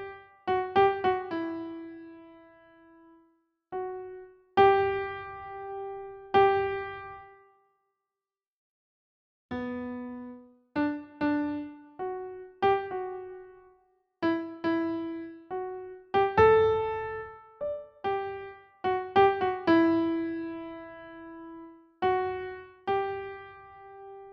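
Slow, gentle solo keyboard melody in an electric-piano tone: single notes struck one after another, each ringing out and fading, with a pause of about two seconds near the middle.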